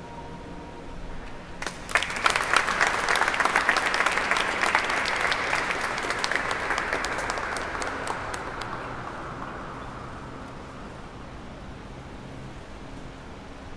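A sustained musical note dies away, then a small audience applauds from about two seconds in. The clapping is loudest early and gradually fades out over the next several seconds.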